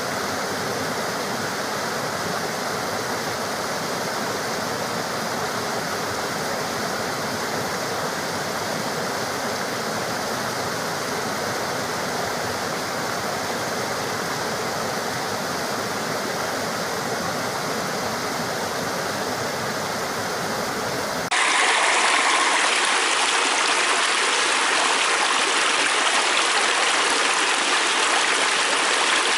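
Stream water flowing in a steady rush. About two-thirds of the way through it cuts abruptly to a different, louder and brighter stretch of rushing water with less low rumble.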